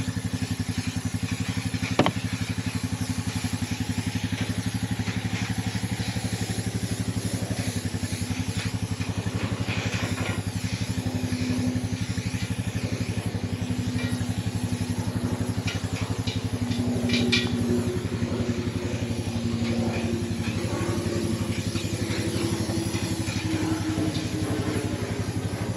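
Gas pressure washer's small engine running steadily under load, with a steady hiss over it. A sharp click about two seconds in.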